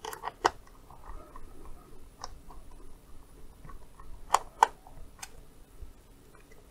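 Small screwdriver working the battery-cover screw on the back of a Kaiweets HT118A multimeter, then sharp plastic clicks and knocks as the meter's case is handled and turned over, the two loudest close together about four and a half seconds in.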